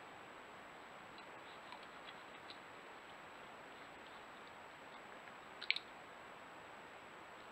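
Faint clicks and crunches from a European badger rooting and chewing in wood chips, with a sharper cluster of clicks about five and a half seconds in, over a steady hiss.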